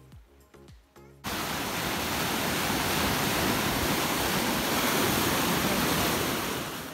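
Background music for about a second, then an abrupt cut to loud, steady surf: sea waves breaking and washing over a rocky reef.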